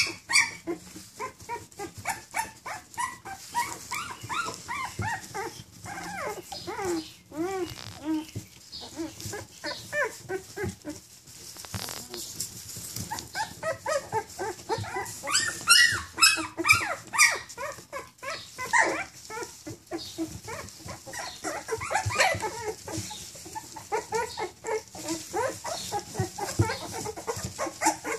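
A litter of two-and-a-half-week-old American pit bull terrier puppies whining and squeaking, many short high calls overlapping several times a second throughout.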